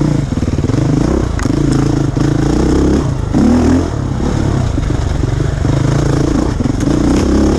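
Beta 430RRS single-cylinder four-stroke dirt bike engine revving up and falling back in repeated throttle surges while riding tight woods single-track, heard from a helmet camera. There are a few sharp clicks of clatter among the engine sound.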